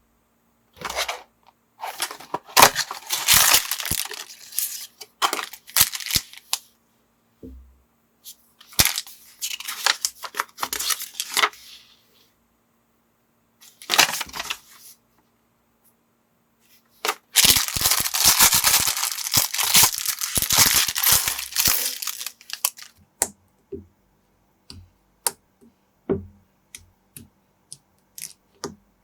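Plastic packaging crinkling and tearing in four long bursts, then a run of small sharp clicks of plastic building bricks and pieces being handled near the end.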